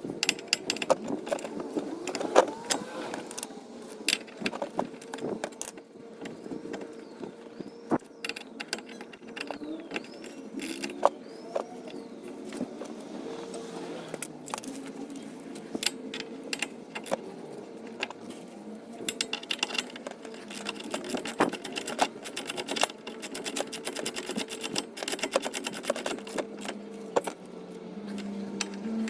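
Hand tools clinking and knocking against metal suspension parts during work on a car's wheel hub assembly. In the second half a ratchet wrench clicks in quick, even strokes for several seconds as bolts or nuts are turned.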